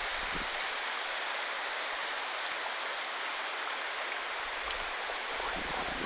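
Risco waterfall's water falling and splashing, a steady rushing sound.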